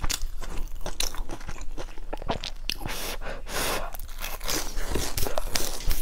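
Close-miked biting and chewing of crusty fried bread: a run of sharp crunches and wet mouth sounds.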